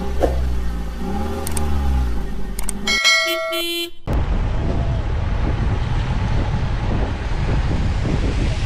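An intro sound effect of an engine revving up and down, followed by a brief jingle of bright tones that cuts off suddenly about four seconds in. After that, steady road and wind noise from a vehicle driving along.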